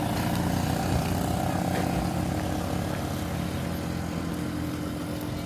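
A motor vehicle's engine running steadily, slowly getting quieter toward the end.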